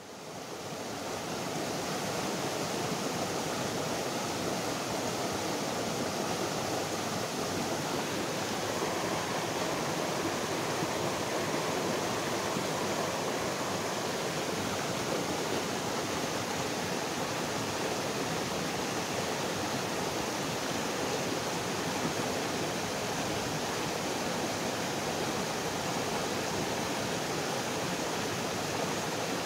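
Fast-flowing rocky stream rushing and splashing around boulders, a steady water noise that fades in over the first couple of seconds.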